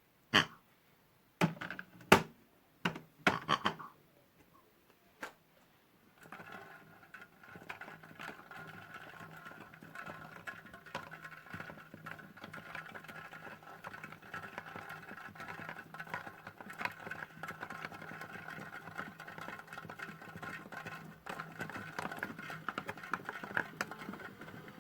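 A few sharp knocks and clicks, then from about six seconds in the small electric motor of a modified Hotpoint toy washing machine runs steadily with a whirring hum as its drum turns.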